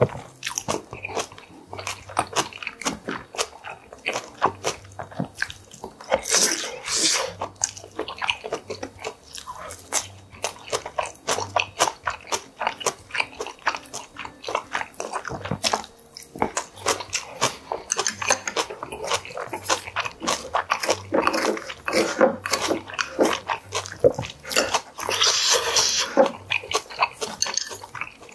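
A man chewing and crunching mouthfuls of fresh napa-cabbage kimchi and boiled pork close to the microphone: rapid, wet crunches and mouth clicks throughout.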